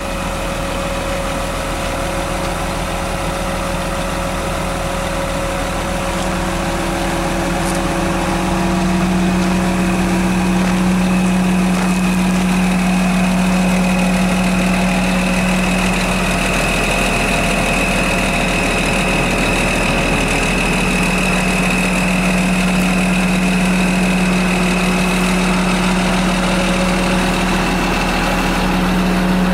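John Deere motor grader's diesel engine idling steadily with a thin high whine over its low rumble, slightly louder after about eight seconds.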